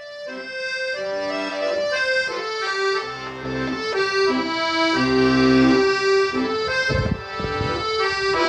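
Background music: an accordion playing a slow melody with sustained notes over a bass accompaniment.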